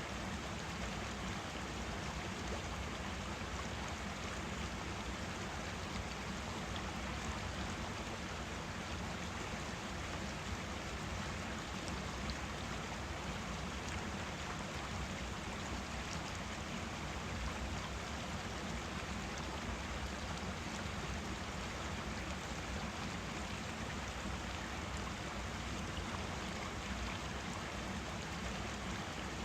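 A forest stream running steadily: an even, unbroken rush and babble of water.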